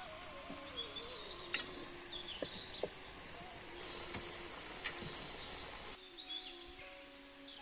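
Outdoor ambience of birds chirping over a steady high insect drone, with a few light knocks as a clay cooking pot is handled. About six seconds in the sound drops quieter, leaving faint birdsong.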